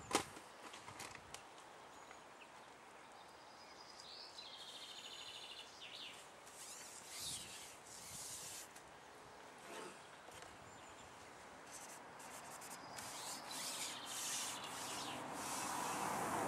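Quiet lakeside ambience with faint birds chirping, broken by a sharp click right at the start and by the rub and rustle of a carbon fishing pole being handled and slid back, the rubbing growing louder near the end.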